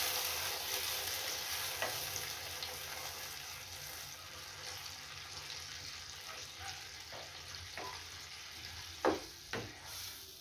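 Potato curry gravy in a frying pan sizzling as it is stirred with a spatula, the hiss dying down gradually as the freshly added water heats. Two sharper knocks of the spatula on the pan come near the end.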